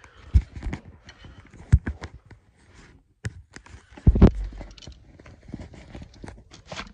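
Handling noise of a phone camera being moved about: irregular knocks, bumps and rubbing on the microphone, with loud thumps about half a second in, near two seconds and just after four seconds.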